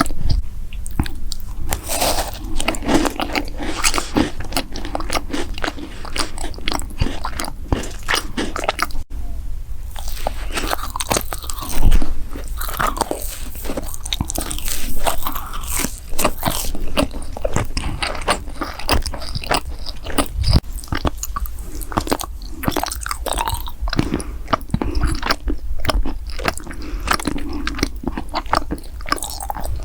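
Close-miked eating sounds: crunchy bites and chewing of snacks, with dense crisp crackles and mouth clicks. The crunching breaks off for a moment about nine seconds in, and one bite a few seconds later is louder than the rest.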